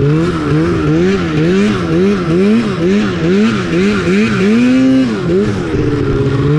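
Polaris RMK snowmobile's two-stroke engine being worked on and off the throttle while riding, its revs rising and falling about twice a second. Near the end it pulls up once for longer, drops, and settles to a steadier run.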